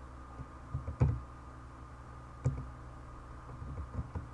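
Computer keyboard keys being pressed while coordinates and commands are entered in CAD software: a few separate clacks, the loudest about a second in, over a faint steady hum.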